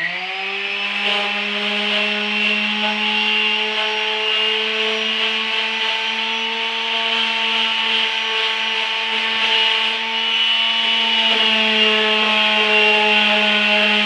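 DeWalt electric palm sander spinning up at the start, then running at a steady pitch as its pad rubs across a block of 2x3 softwood stud.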